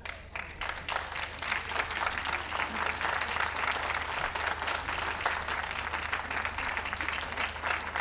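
Spectators' applause, many hands clapping at once; it starts abruptly and holds steady.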